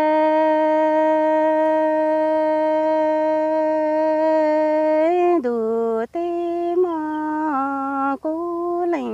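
A woman's solo voice singing Hmong kwv txhiaj. She holds one long steady note for about five seconds, then sings shorter notes that step down and back up in pitch, with two brief breaks.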